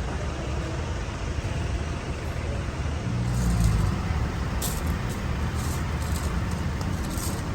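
Street traffic noise: steady road rumble, with a vehicle passing louder about three and a half seconds in and brief high hisses after it.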